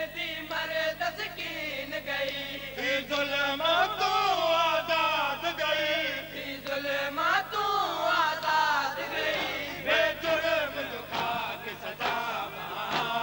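A noha party of men chanting a Shia lament, one voice on a microphone carried by others. Chest-beating (matam) slaps join in toward the end.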